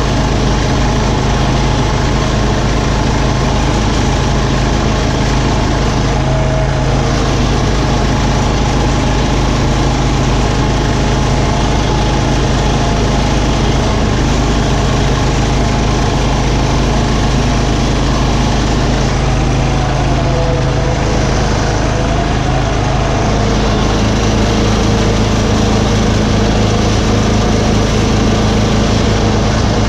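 Tractor engine running steadily, its note changing about three-quarters of the way through.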